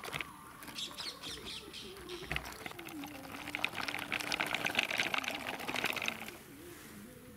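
Birds chirping and calling, with a dense crackling rustle that is loudest from about three to six seconds in.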